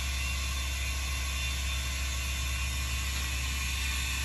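Milwaukee M18 cordless 18-volt air compressor running steadily, pumping air through its hose into a truck tire through a chuck held on the valve.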